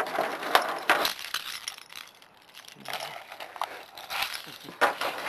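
A large bunch of keys on a keychain jangling as it is handled, in two spells of rapid metallic clinking with a short lull about two seconds in.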